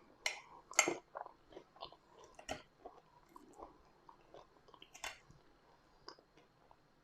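Close-miked chewing and biting of food: wet mouth smacks and clicks, with sharper bites just under a second in and again at about two and a half and five seconds.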